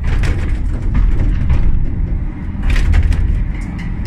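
Funicular cabin moving up its inclined track: a steady low rumble with a few rattling clatters, one near the start and another just before three seconds in.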